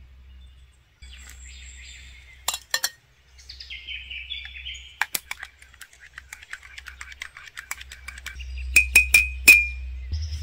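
A metal spoon stirring and tapping in a ceramic mug: a run of light ticks, then four sharp clinks with a short ring near the end. Birds chirp in the background.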